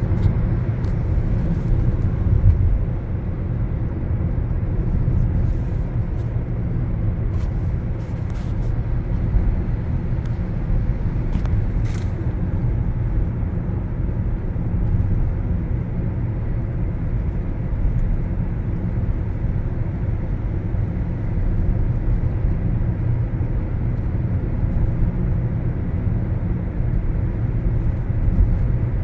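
Steady low road and engine rumble of a car driving at a constant speed, heard from inside the cabin, with a few faint clicks in the first half.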